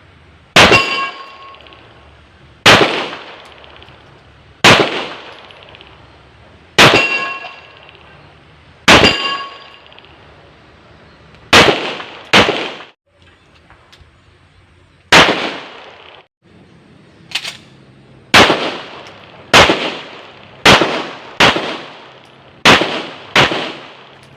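Rock Island Armory Tac Ultra FS HC 9 mm pistol firing about fifteen shots. At first they come one every two seconds or so, then faster, in quick pairs, toward the end. Several shots leave a short metallic ring behind them.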